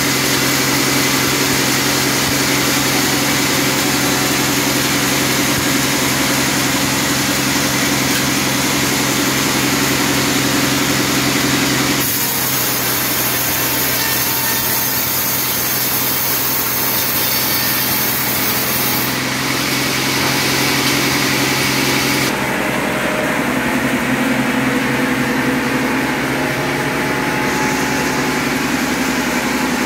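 Log band saw running steadily and cutting through a teak log, a constant motor hum under a high sawing hiss. The sound shifts about 12 seconds in and again a little past 20 seconds.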